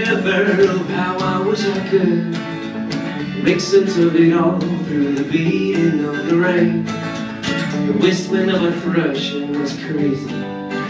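Live acoustic and electric guitar duo: an acoustic guitar strums steady chords under a melodic electric guitar lead line that bends in pitch.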